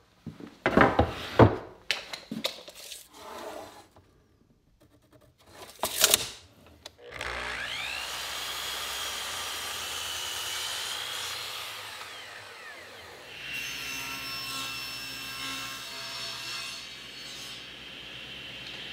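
A few knocks and clunks as the board is handled. About seven seconds in, a miter saw spins up with a rising whine and crosscuts the board for about five seconds. From about thirteen seconds, a SawStop table saw runs steadily with a level whine while ripping the boards into strips.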